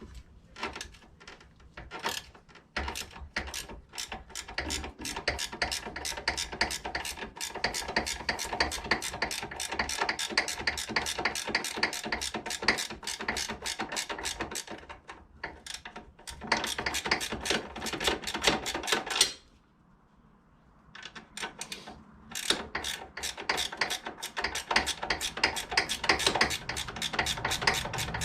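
Hand ratchet clicking steadily, about four clicks a second, as a nut on the ATV's sway bar link is backed off. The clicking pauses for about two seconds past the middle, then starts again.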